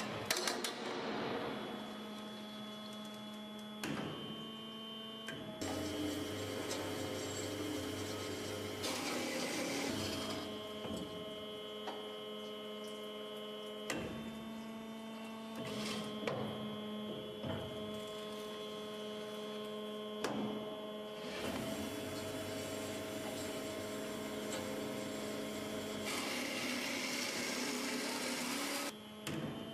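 BS 360 CNC band saw running on an automatic mitre-cutting cycle: a steady machine hum with several fixed tones, broken by a few spells of hissing, rushing noise that come and go.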